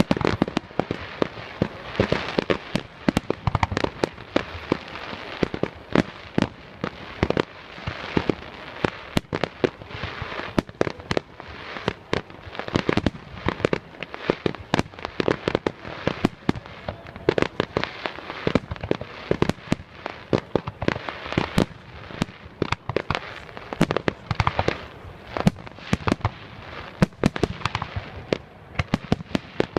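Fireworks display: a continuous barrage of bangs and shell bursts, several a second, over a constant crackling haze.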